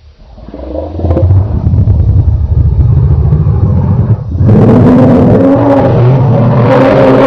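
Dinosaur roar sound effect. A low, rough rumbling growl swells over the first second. After a brief break about four seconds in, a louder roar with a clear pitch carries on.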